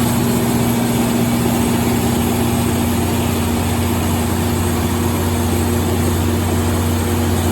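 350 kW Cummins/Onan diesel generator set running at a steady speed, a constant low drone with no change in pitch or level.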